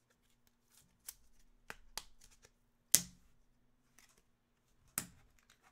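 Trading cards being handled and flipped through: a few short, sharp clicks and snaps of card stock, the loudest about three seconds in and another about five seconds in.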